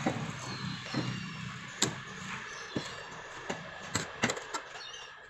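Pickaxe striking into dry, root-filled soil around a tree stump: a string of sharp, irregular chops, about a second apart at first and coming closer together near the end.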